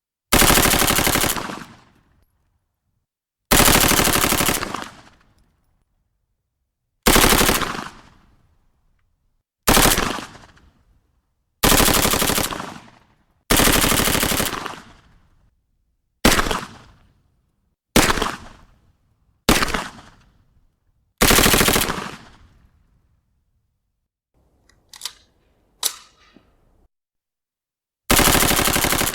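Heckler & Koch MP5 9 mm submachine gun firing about a dozen short fully automatic bursts at irregular intervals, each cutting off into a fading echo. Near the end come two much quieter, shorter bursts.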